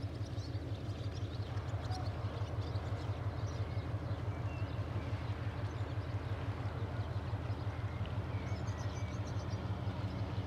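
A boat engine's low, steady throb with an even, rapid pulse of about four beats a second, while small birds chirp.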